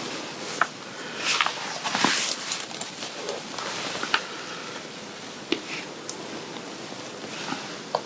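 Fabric rustling as the straps of a garment are handled and adjusted by hand, with a few soft swells of rustle and scattered small clicks and taps.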